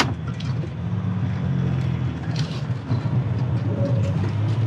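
Jeep Gladiator Rubicon EcoDiesel's 3.0 L V6 turbodiesel pulling steadily under load while the truck claws up a steep dirt hill with its wheels spinning. A sharp click right at the start, then scattered smaller clicks and knocks.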